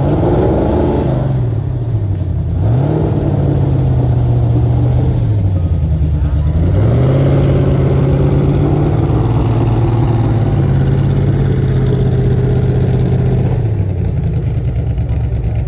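Ford GT40 replica's V8 engine being revved. It rises sharply at the start and drops back, then is held at raised revs for a couple of seconds and drops again. It then rises and holds steady for about seven seconds before falling back to idle near the end.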